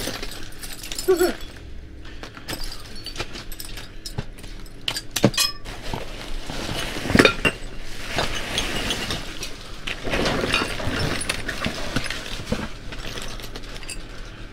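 Rummaging through discarded items in a dumpster: hard objects clattering and clinking against each other, with sharper knocks about 5 and 7 seconds in.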